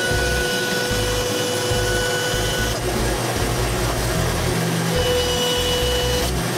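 Bandsaw running and cutting a laminated curly maple and purpleheart block, with a steady motor whine.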